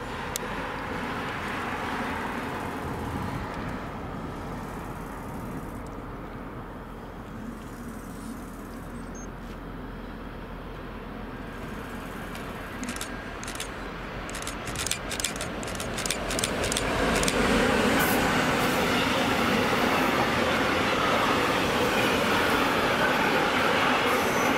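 Freight train approaching and then rolling past close by. A distant rumble is followed by a run of sharp clicks as it draws near, then a loud, steady rumble of the intermodal wagons' wheels on the rails.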